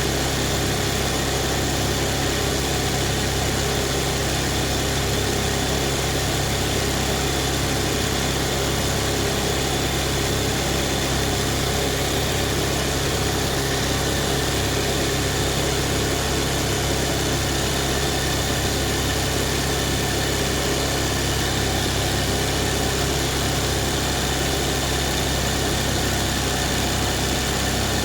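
Embroidery machine running steadily as it stitches a zari design, a continuous mechanical hum.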